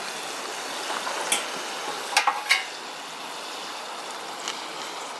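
Celery pieces boiling in a kazan, a steady bubbling hiss, with a few sharp metal clinks of the slotted skimmer against the pot about two seconds in.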